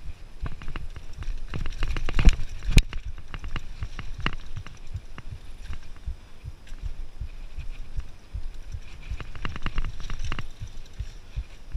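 Mountain bike ridden over a dirt singletrack: a low rumble of tyres and frame with many small thuds, and clusters of sharp rattles and clicks as the bike goes over bumps. The loudest are a couple of knocks about two to three seconds in, with another run of rattling a little before the end.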